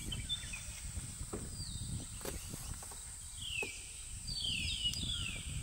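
Forest birds calling with short, downward-sliding whistled notes, a few early on and a cluster of them near the end, over a steady high-pitched insect drone and a low rumbling background, with a few faint knocks.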